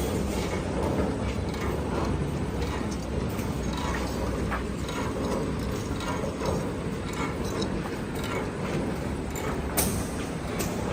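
Reinforced concrete pipe cage welding machine running: a steady mechanical clatter with irregular clicks throughout, and one sharper click near the end.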